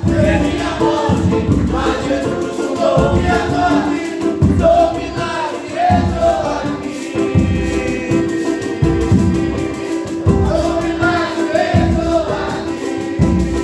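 Congregation or choir singing a gospel hymn over live band accompaniment with a steady beat and a sustained keyboard bass note.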